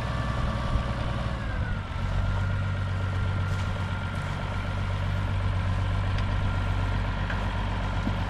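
A vehicle engine running steadily; its pitch drops about a second and a half in, then holds.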